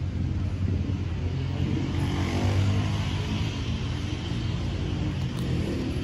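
Low engine rumble of a motor vehicle, growing louder about two to three seconds in and then easing off, as if it drives past.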